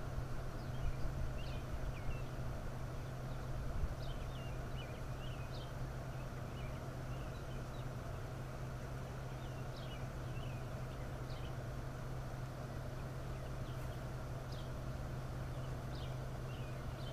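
Outdoor ambience: a steady low hum under a broad rushing noise, with small birds chirping briefly every few seconds in the background and a few low bumps near the start.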